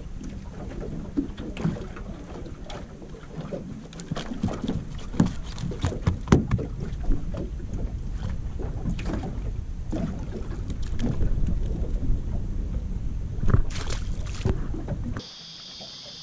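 Wind buffeting the microphone in a low rumble, with scattered knocks, clicks and rattles as a fish is handled and unhooked with pliers on a small boat's deck. About fifteen seconds in, the sound cuts abruptly to a quieter steady hiss.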